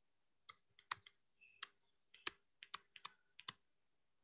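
Faint, irregular sharp clicks, about a dozen in four seconds, from a stylus tapping and stroking on a pen tablet while writing by hand.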